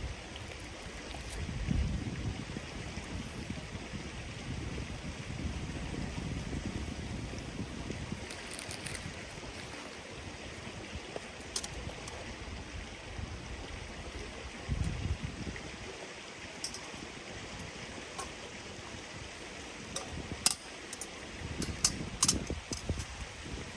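A river or stream running steadily, with occasional low rumbles swelling and fading. Several sharp clicks or knocks come in the last few seconds.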